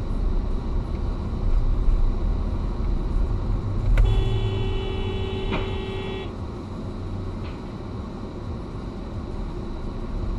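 Steady low rumble of a car's engine and tyres heard from inside the cabin. About four seconds in, a sharp click comes, then a car horn sounds one steady blast of about two seconds that cuts off abruptly.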